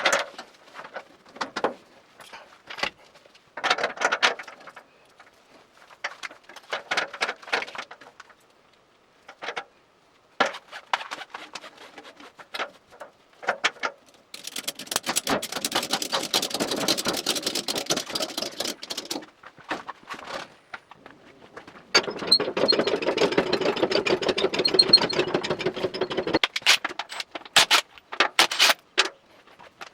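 Workshop sounds of tools and parts being handled: scattered clicks and knocks, then two runs of a small power tool, about five and four seconds long, a few seconds apart.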